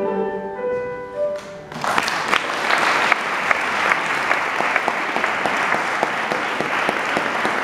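Mixed choir singing its last notes, which die away; about two seconds in, the audience starts applauding and keeps clapping steadily.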